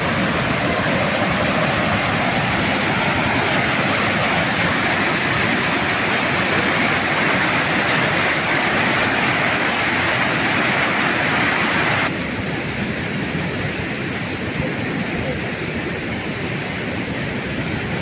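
Waterfall: a steady rush of falling water. About twelve seconds in it cuts suddenly to a quieter, duller rush.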